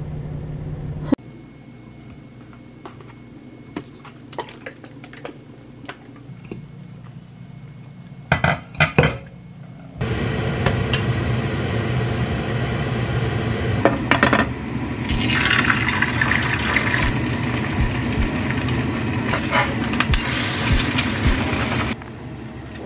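Scattered light clicks, then a metal ladle stirring and scraping curry in a stainless steel pot, with repeated clinks of metal on metal, starting about ten seconds in and stopping shortly before the end.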